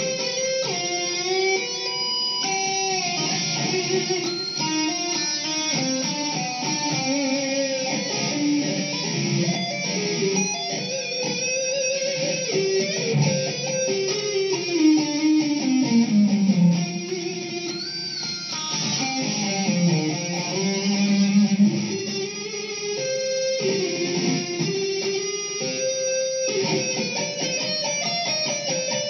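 Electric guitar lead playing on a Mexican-made Fender Stratocaster fitted with newly installed DiMarzio YJM Fury pickups. It plays continuous single-note melodic runs, with two long sliding pitch drops around the middle.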